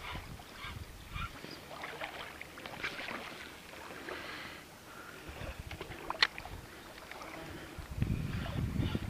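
A topwater grunting lure (khryukalka) being retrieved across the water on a spinning rod, gurgling and grunting in short rhythmic pulses. A sharp click comes about six seconds in, and a low rumble near the end.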